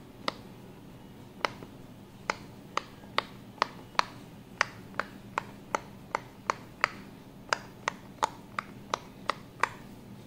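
Silicone pop-it fidget toy bubbles pressed in one after another by a finger, each giving a sharp little pop. About twenty pops come in a steady run of two to three a second, with a short pause near the start.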